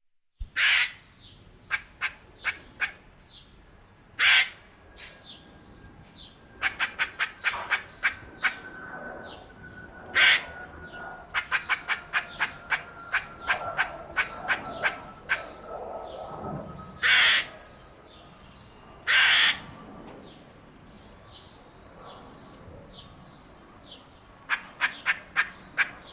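Squirrel alarm calls: quick runs of sharp clucks, about five a second, broken by several longer squawks.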